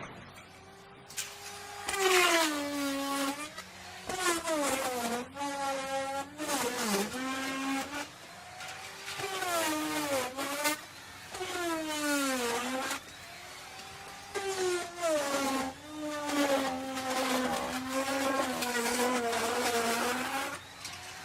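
Electric wood router cutting into wood. The motor's whine dips in pitch again and again as the bit takes load in the cut, then climbs back as the load eases, with the rough noise of the cutting rising and falling along with it.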